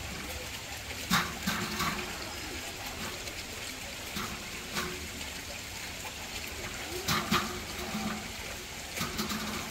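Knife chopping peeled cassava root into small chunks, a handful of sharp knocks at irregular intervals, over a steady sound of running water.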